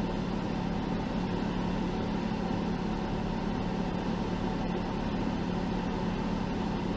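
Jeep engine idling steadily: a low, even hum with no revving.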